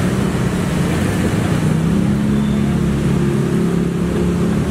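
A steady low engine-like hum under a loud rushing noise, with no clear breaks or changes.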